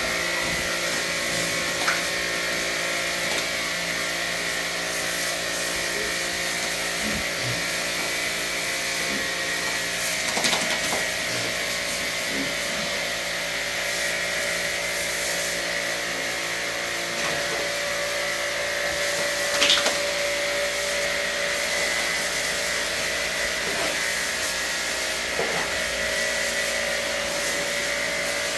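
A small motor running steadily, with a few short knocks.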